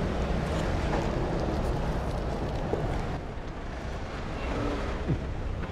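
Street traffic: a steady low rumble of cars going by.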